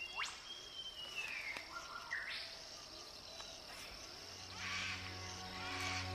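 Evening insect chorus, a steady high chirring, with a few sliding bird whistles in the first seconds. Soft background music with sustained low tones comes in about four seconds in.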